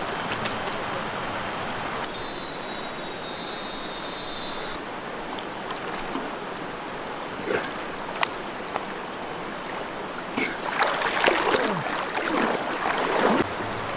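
Shallow river flowing steadily, then splashing from about ten and a half seconds in for a few seconds as people wade through the water.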